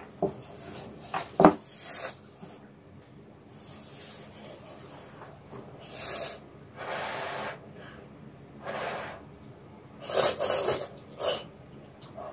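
A person slurping warm vegetable noodles in broth with several separate noisy pulls, the loudest cluster near the end. A sharp click sounds about a second and a half in.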